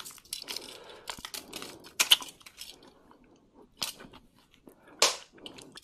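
Costume jewelry being picked through by hand: scattered light clicks and clinks of small metal pieces with soft rustling, the sharpest about two seconds in and again about five seconds in.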